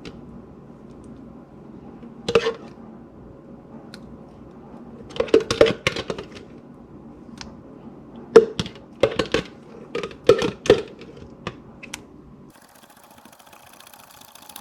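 A kitchen utensil knocking and scraping against a bowl or container while the condensed milk and mayonnaise are mixed and scraped out, in short irregular clusters of clicks and taps.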